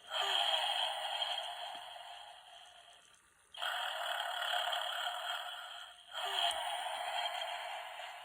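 Snoring Santa figure playing its recorded snore through a small speaker: three hissy snores about three seconds apart, each starting loud and fading away.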